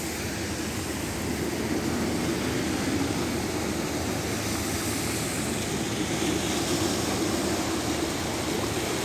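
A motor vehicle's engine droning steadily over a constant rushing noise, the drone growing a little after about two seconds.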